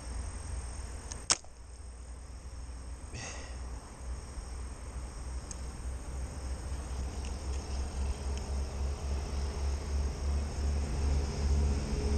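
A single sharp snap about a second in, the release of a fishing slingshot's rubber bands firing a shot, followed about two seconds later by a weaker, briefly ringing noise. A low rumble builds toward the end.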